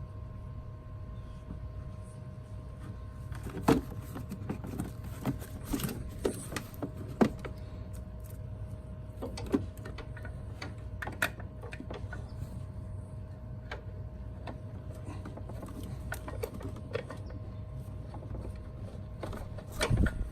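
Hand tools clicking and tapping on metal as screws are started and turned, irregular sharp clicks over a steady low hum. The loudest clicks come a few seconds in, around seven seconds and just before the end.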